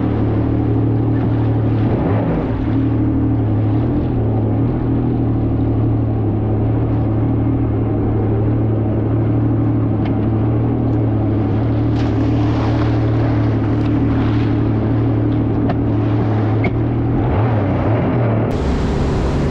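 Personal watercraft (jet ski) engine running steadily at an even pitch.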